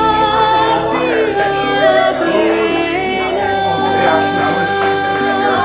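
Background song with a singing voice holding long, gliding notes over a steady bass line.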